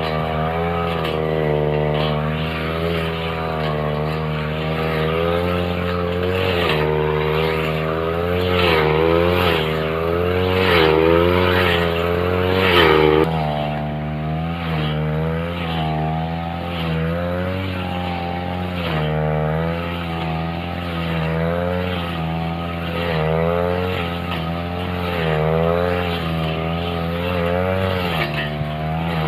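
Backpack two-stroke brush cutter running at high speed, its metal blade cutting through thick grass. The engine pitch keeps rising and dipping as the blade swings through the grass, with the steepest dip about thirteen seconds in.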